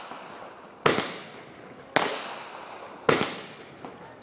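Aerial consumer fireworks firing shot after shot: three sharp bangs about a second apart, with another right at the end, each trailing off in an echo. A faint rising whistle comes just before the last bang.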